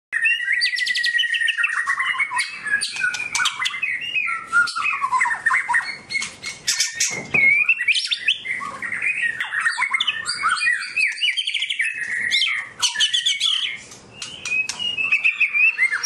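White-rumped shama singing a full, fast song: a varied run of clear whistles sliding up and down, rapid trills and sharp clicking notes, with a brief break near the end before it carries on.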